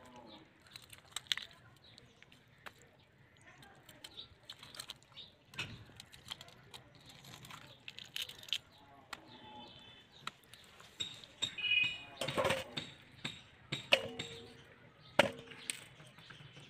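Scattered small clicks, scrapes and knocks of raw carp pieces being handled and cut with a knife on a banana leaf. Near the end, two sharp metallic clinks with a short ring as pieces land in a stainless-steel bowl.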